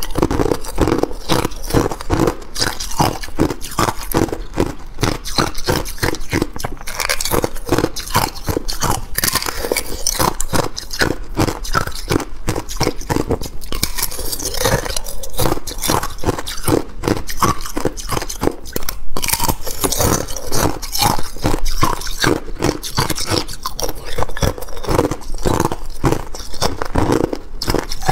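Thin sheets of ice crunching and cracking as they are bitten and snapped apart by hand. The sound is a dense, continuous run of crisp cracks.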